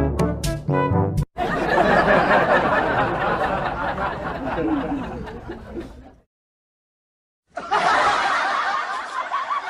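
The end of a short comic brass sound effect, then a burst of laughter that fades away over about five seconds. After about a second of silence the laughter starts again.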